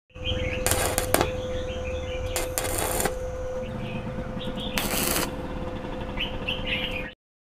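Stick (arc) welder tack-welding thin square steel tubing: three short bursts of arc crackle a second or two apart over a steady hum. Birds chirp faintly in the background.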